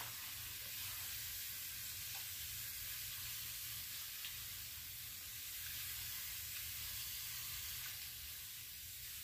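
Hand-pump pressure sprayer, pumped up to pressure, spraying a steady hissing stream of water onto seed-starting trays.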